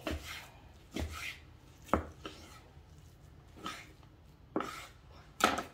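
Kitchen knife cutting raw beef into stew-meat cubes on a cutting board: about seven cuts, roughly one a second, each a short slice ending in a knock of the blade on the board, the sharpest about two seconds in and near the end.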